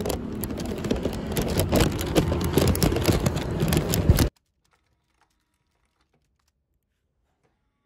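Dense crinkling and rustling of plastic packaging handled right against the microphone, a rapid crackle of small clicks that cuts off suddenly about four seconds in; near silence follows.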